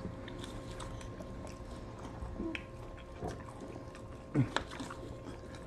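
Quiet eating sounds at a table: soft chewing and small clicks over a steady low hum. About four and a half seconds in comes a brief small vocal sound.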